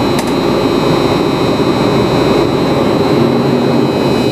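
Fire engine's motor running while the truck stands still, a loud steady rumble heard from inside the cab, with a brief click just after the start.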